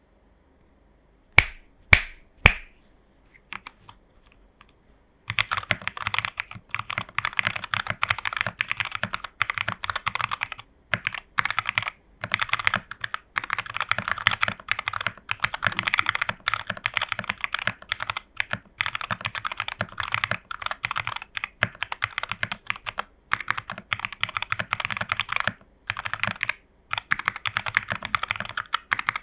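Mechanical keyboard being typed on: a TU40 plateless 40% board with Jwick Nylon switches and XMI Cyrillic keycaps, foamed and tape-modded. Three loud single key presses come first, then after a short pause continuous fast typing with brief breaks.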